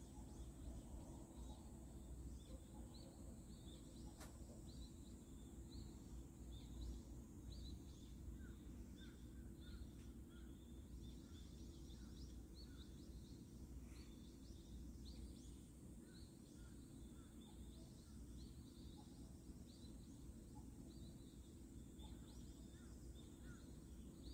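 Near silence outdoors: a steady low rumble of background noise with many faint, short high chirps repeating throughout.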